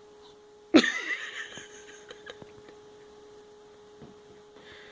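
A dog hiccuping: one sudden, loud hiccup about three-quarters of a second in, followed by a few faint clicks.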